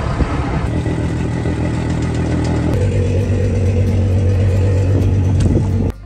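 Tractor engine running steadily under load, driving a vacuum slurry tanker's pump to suck water up from a puddle. About three seconds in, the engine note steps up and gets a little louder.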